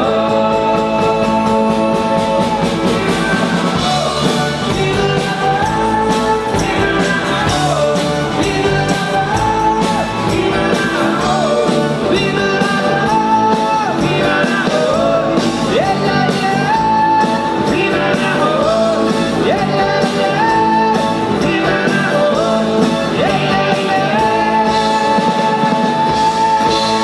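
Live pop-rock band playing a song with a lead singer, the vocals held over guitar, bass and drums, loud and continuous.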